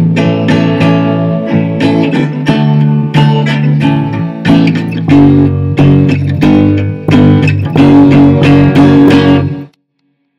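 Electric bass and acoustic-electric guitar playing an instrumental riff, the guitar strummed in quick chords over a steady bass line; it stops suddenly near the end.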